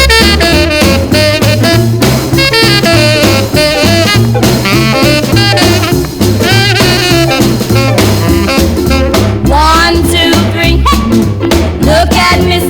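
Upbeat rhythm-and-blues record with horns and a steady beat, played from vinyl.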